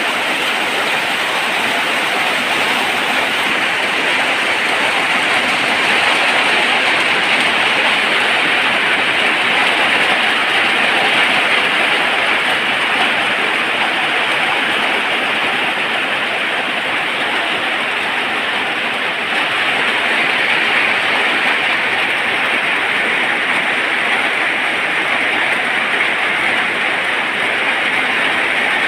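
Heavy rain falling steadily: a dense, even hiss with slight swells in strength.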